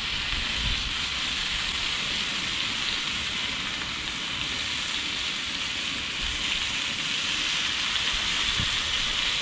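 Raw bacon strips sizzling on a hot flat-top griddle on high heat: a steady frying hiss that grows a little louder near the end as more strips go down.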